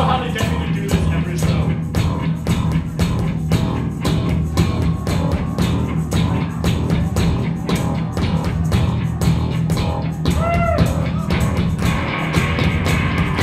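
Live rock band playing: electric guitars, bass guitar and drum kit, with a strong bass line and a steady drum beat.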